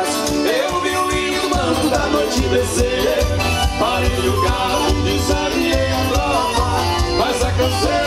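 A forró pé de serra band playing live dance music, with a steady low drum beat under the melody.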